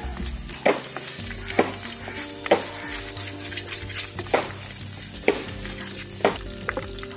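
Curry leaves and fenugreek seeds sizzling in hot oil in a clay pot, stirred with a wooden spatula that knocks against the pot about once a second.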